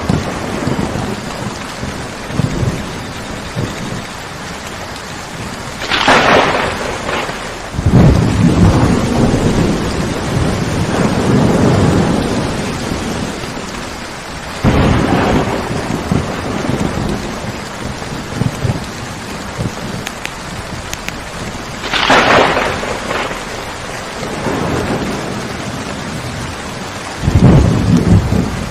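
A thunderstorm: steady rain under repeated thunder, with a sharp crack about six seconds in and another a little past twenty seconds, and long low rumbles rolling after them and again near the end.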